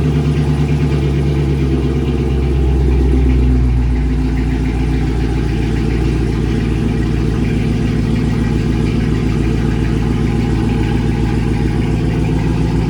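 Dodge Charger R/T's 5.7-litre Hemi V8 idling through a full 3-inch custom exhaust with no catalytic converters, a steady pulsing note. It swells slightly about two and a half seconds in and settles back to idle a second or so later.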